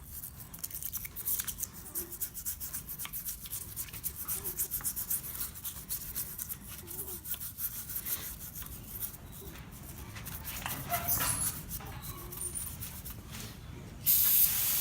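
Wire toothbrush scrubbing grime off a brake-cleaner-wet engine block in rapid, scratchy back-and-forth strokes. Near the end an aerosol can of brake cleaner sprays with a sudden loud, steady hiss.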